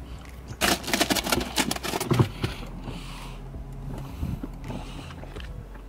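A crappie being dropped into a hard plastic cooler: a quick run of rattling knocks and slaps lasting about a second and a half, the loudest knock near the end of the run.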